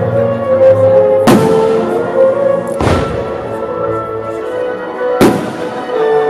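Fireworks shells bursting with three sharp bangs, over music with sustained notes.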